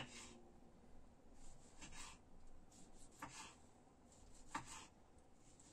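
Knife slicing tomatoes on a cutting board, faint. A sharp knock comes right at the start, then three soft cuts follow over the next few seconds.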